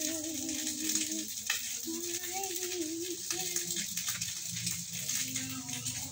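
Wood fire crackling and batter sizzling in a cake mould over the flames, a steady hiss with scattered pops. A voice sings a slow, wavering melody over it, with long held notes.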